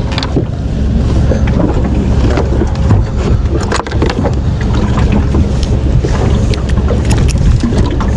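Wind rumbling on the microphone, with scattered knocks and clicks as a fish is handled with pliers on a small boat's deck.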